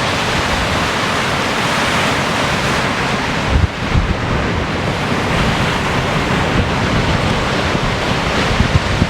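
Ocean surf breaking and washing with wind buffeting the microphone, a loud steady rush of noise with a low gust-thump a little past three and a half seconds in.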